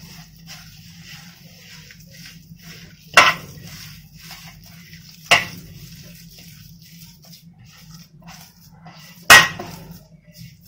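Hands kneading semolina dough in a large brass bowl: soft, continual rubbing and scraping of dough against the metal. Three sharp clanks of something knocking the bowl come about three, five and nine seconds in.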